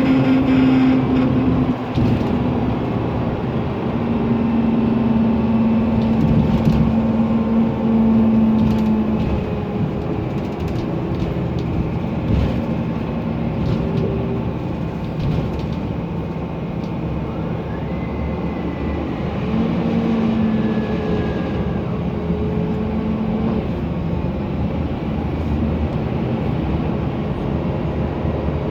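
Mercedes-Benz Conecto NGT city bus with its OM 936 G turbocharged CNG engine and a noisy engine cooling fan running, a steady mechanical drone with a hum that swells in for a few seconds twice.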